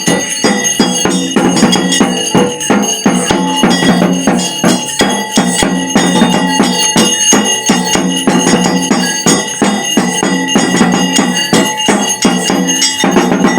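Fast, dense traditional ritual percussion: drums beaten rapidly under continuously ringing bells and jingling metal percussion.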